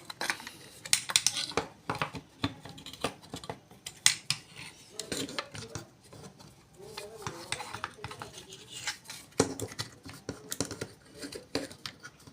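Small metal tools and parts of an FYC hair trimmer clicking and clinking irregularly as the trimmer is taken apart by hand.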